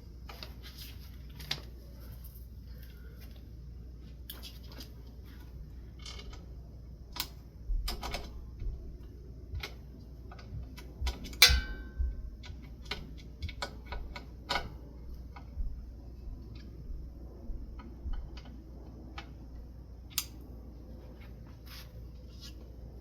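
Scattered metal clicks and knocks of hand work on a ceiling fan as its blades and screws are fitted. About eleven seconds in comes one louder clank that rings briefly.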